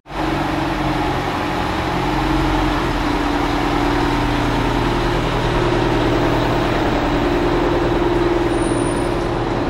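Oshkosh M1070 8x8 heavy-haul truck's diesel engine idling steadily, heard close up.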